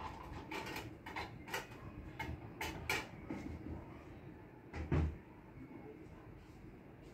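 A run of light clicks and knocks in the first few seconds, then one louder, deeper thump about five seconds in.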